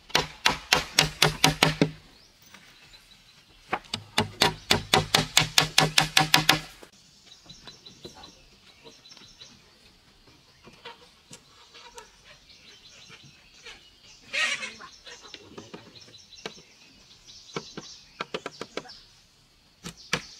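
Claw hammer driving nails into wooden planks with quick, even strikes, about five a second, in two runs of blows in the first seven seconds, each knock ringing briefly in the board. Lighter, scattered taps follow.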